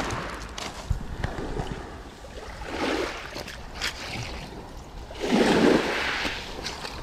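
Small waves breaking and washing up over a shingle beach in two surges, the second, about five seconds in, the loudest. Wind rumbles on the microphone, and there are a few sharp clicks.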